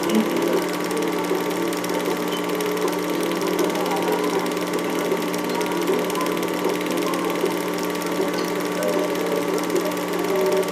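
Home-movie film projector running: a steady motor hum with a fast, even mechanical chatter from the film mechanism.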